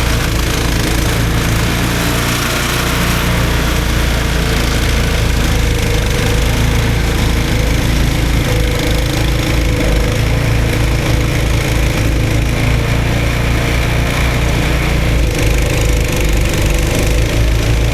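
Snowblower's small gas engine running steadily.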